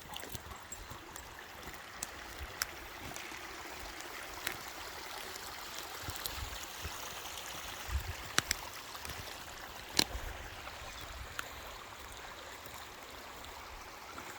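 Steady rushing hiss of flowing water, with a few sharp clicks and low knocks scattered through it.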